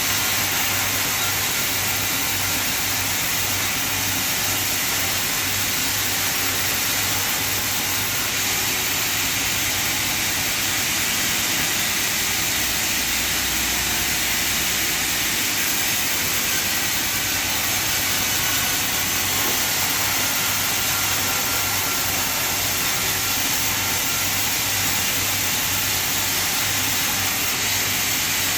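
Sawmill machinery running steadily: a constant loud hissing din with no pauses or changes.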